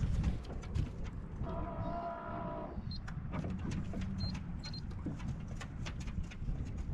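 Wind rumbling on the microphone aboard a small boat, with scattered light ticks and a brief whine-like tone about a second and a half in.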